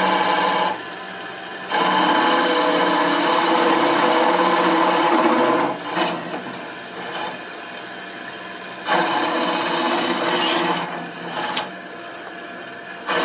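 Wood lathe running while the pointed cutter of a sphere-turning jig scrapes into the end of a spinning wooden ball, hollowing out the nested spheres of a Canton ball. The cutting comes in several stretches, the longest about four seconds, with quieter spells between them where only the lathe's hum remains.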